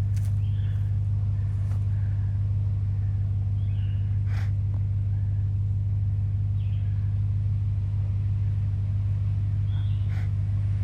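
Pickup truck engine idling steadily: a constant low hum that does not rise or fall, with a couple of faint clicks.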